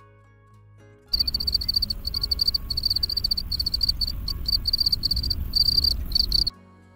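Field cricket calling: a steady run of high-pitched, pulsing chirps over a low rumble, starting about a second in and stopping shortly before the end.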